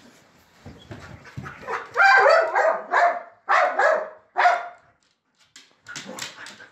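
Small dog barking in protest as its blanket is taken away: a run of about four loud, drawn-out barks in the middle, with softer rustling and knocks around them.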